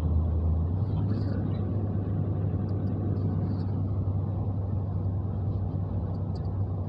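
Steady road and engine noise inside a moving car's cabin: tyres on the highway with a low engine drone that steps slightly higher in pitch about a second in.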